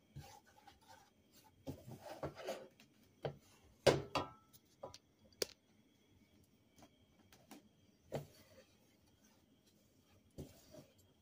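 Wooden spoon stirring and scraping flour around a stainless steel saucepan, with soft rubbing and scattered knocks against the pot, the loudest about four seconds in. The flour is being dry-roasted in a little oil until it browns.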